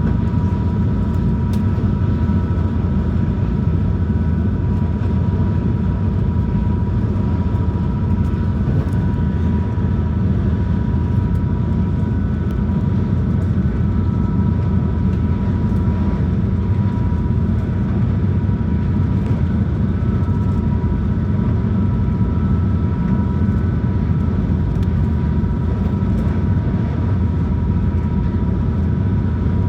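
Inside the passenger cabin of a high-speed boat underway: the engines and hull give a steady, loud, low drone, with a thin steady whine above it.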